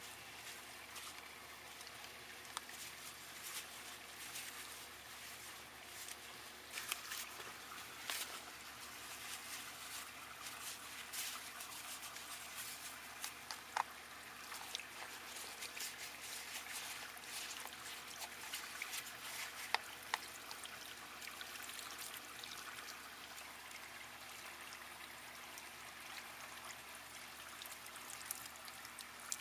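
Water from a garden hose trickling and splashing as a mesh filter sock is rinsed out, steady throughout, with a few small knocks and ticks now and then.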